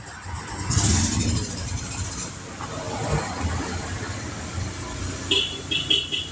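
An engine running with a steady low rumble, with a rush of hiss about a second in and a run of four or five short high-pitched chirps near the end.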